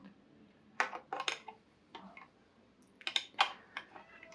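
Hard plastic clicking and rattling as a detachable plug head is worked onto a power adapter's socket: a few quick clusters of sharp clicks.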